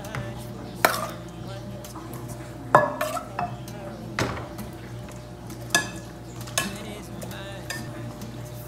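Steel ladle scooping thick meat sauce from a metal pot and knocking against the pot and a glass baking dish: about seven sharp clinks spread through, a few ringing briefly, the loudest about three seconds in.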